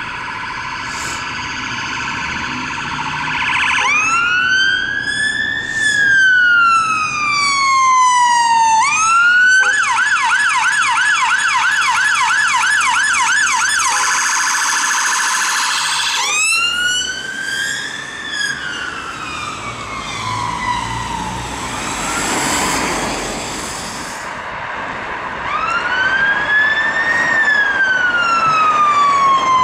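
Electronic sirens of fire service vehicles on an emergency response. A slow wail rises quickly and falls away twice, then a fast yelp runs at about three cycles a second for several seconds, then more slow wail sweeps follow near the end, over the sound of road traffic.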